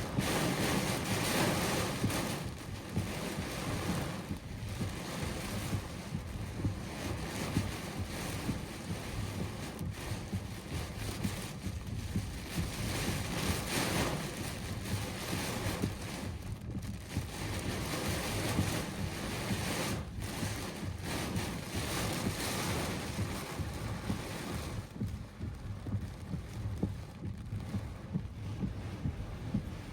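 Extreme storm winds with heavy rain, gusting up and down, with wind buffeting the microphone.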